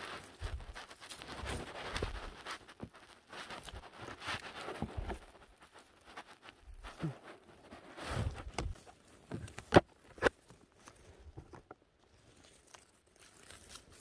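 Footsteps and rustling through forest undergrowth, with scattered clicks and two sharp snaps about ten seconds in, then quieter.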